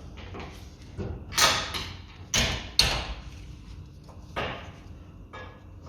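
Several short clunks and scrapes of metal tools and brake parts being handled, with the loudest knocks about one and a half to three seconds in.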